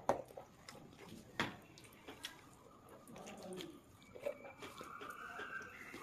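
Hand-eating sounds: fingers mixing rice with fish curry on a plate, with soft wet squishing and a few sharp clicks, the loudest at the start and another about a second and a half in.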